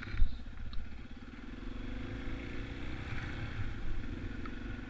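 2014 Yamaha XT250's air-cooled single-cylinder four-stroke engine running steadily while the bike is ridden, its pitch climbing a little about two seconds in, over a low rumble. A single sharp knock sounds about a quarter second in.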